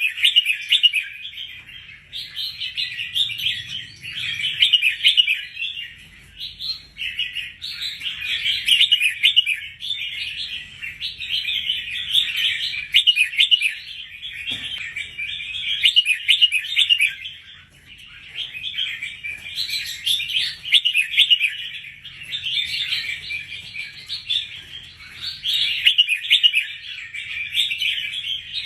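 Red-whiskered bulbul singing: quick, chirpy phrases a few seconds long follow one another almost without pause, with a few brief breaks.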